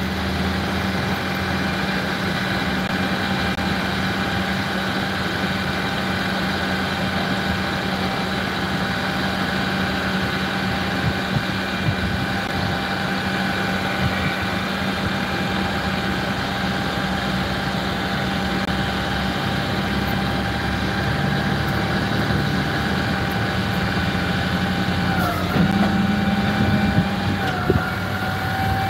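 Flatbed tow truck engine idling steadily, with a steady whine over a low hum. Near the end the whine's pitch dips briefly twice, as the bed controls are being worked.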